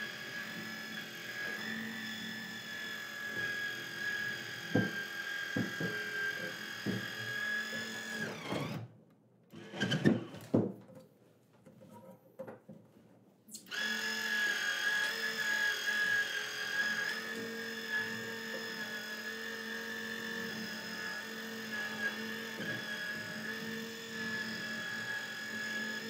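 12-volt electric motor of a MORryde motorized cord storage reel running with a steady whine as it winds a 50-amp RV power cord onto the drum, with a few light knocks. The motor stops about nine seconds in, a few louder knocks follow, and it starts winding again about four seconds later.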